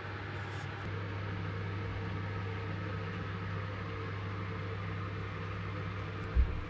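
A steady, low machine hum, with one short dull thump near the end.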